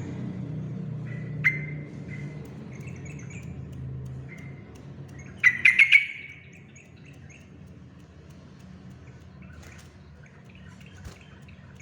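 Yellow-vented bulbul (trucukan) calling: one sharp note about a second and a half in, then a loud burst of four quick notes a few seconds later, with softer chirps scattered between. A steady low hum runs underneath.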